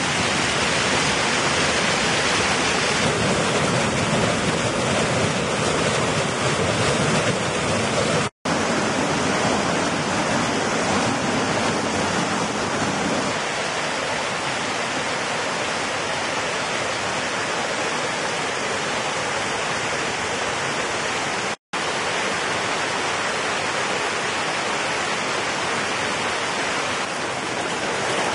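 Mountain stream rushing over rocks in small cascades: a steady noise of running water. The tone shifts slightly a few times, and the sound cuts out for an instant twice.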